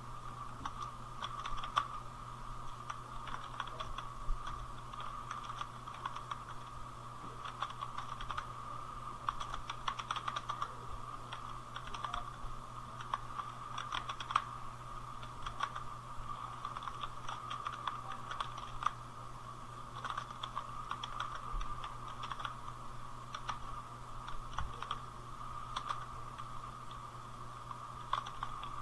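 Computer keyboard typing: a steady, irregular stream of keystroke clicks, as in continuous typing of a text passage at around 38 words per minute, over a steady low hum.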